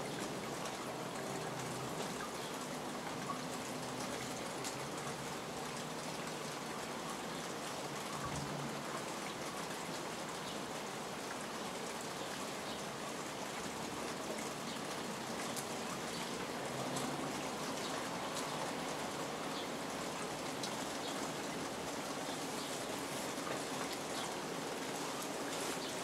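Rain falling steadily, with scattered drops tapping close by.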